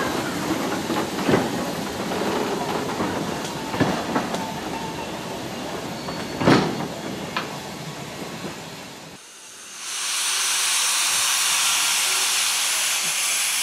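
Vintage wooden railway carriages rolling past and away, with a run of wheel noise and occasional sharp knocks from the rail joints, fading as the train recedes. About nine seconds in, this cuts to a loud, steady hiss of steam blowing from an industrial saddle-tank steam locomotive's open cylinder drain cocks.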